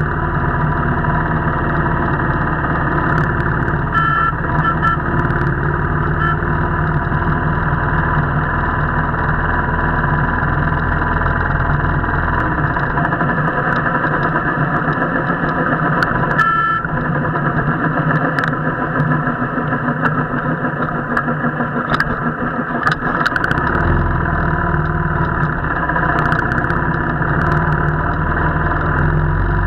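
Royal Enfield single-cylinder motorcycle engine running steadily while riding a rough mountain road, with scattered knocks and rattles from bumps. The deep rumble falls away for about ten seconds in the middle, then comes back.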